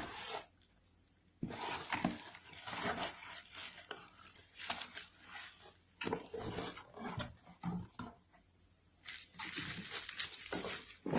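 Packaging being handled and opened: irregular rustling and scraping in three spells with short pauses between them.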